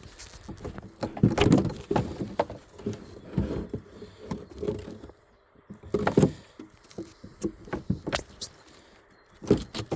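Irregular knocks, clicks and scrapes of wooden beehive frames and hive parts being handled, with louder clusters of knocks about a second in, around six seconds in and near the end.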